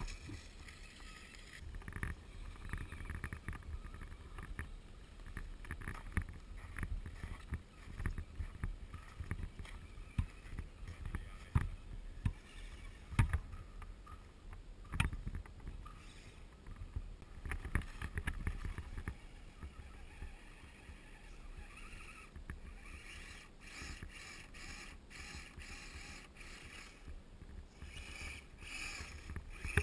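1:10 scale RC crawler trucks driving over snow: the motor and gears running, with many short knocks and scrapes as the trucks bump over the snow, over a constant low rumble of wind and handling noise on the microphone. A steadier mid-pitched running sound grows stronger in the last third.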